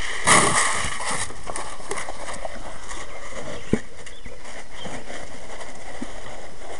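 Feed poured from a plastic jug into a plastic tub in a short rush, then steers eating from the tub: muzzles nosing through the feed, with scattered knocks against the tub.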